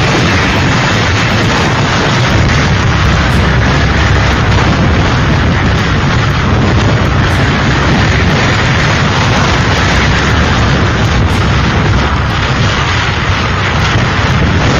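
Hurricane-force wind blasting the microphone: a loud, unbroken rush of noise with a heavy low rumble from the buffeting.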